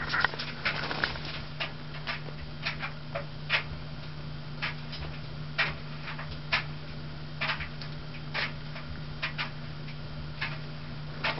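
Vintage Lasko ornate spinner 52-inch ceiling fan running on high: a steady motor hum with irregular sharp ticks, about one or two a second.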